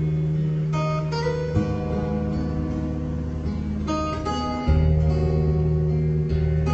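Acoustic guitar music with plucked and strummed notes over a held low bass, played back through a Class-D amplifier kit under test.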